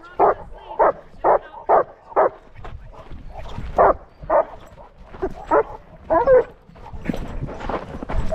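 A dog barking in a quick, regular run of about two barks a second, then in more spaced-out barks that stop about two-thirds of the way through.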